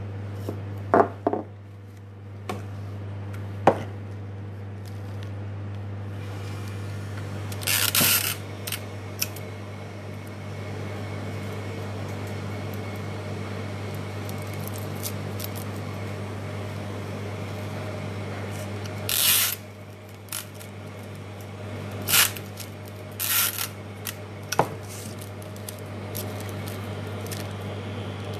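Handling noise from gathering roses and greenery into a hand-tied bunch. A few sharp clicks come in the first seconds, then scattered short rustling bursts, over a steady low hum.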